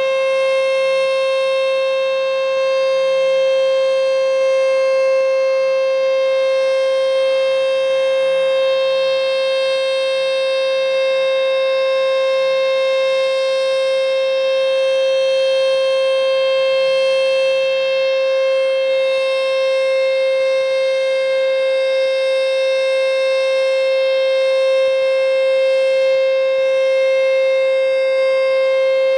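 American Signal T-121 electromechanical tornado siren sounding its steady alert tone during a test. It holds one unbroken, loud pitch with a stack of overtones, swelling slightly in loudness.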